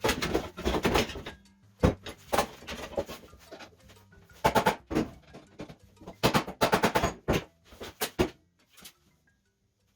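Hammer blows on a bent aluminium mountain-bike rim: clusters of sharp knocks, some in quick runs of several strikes a second. The sound cuts out abruptly near the end.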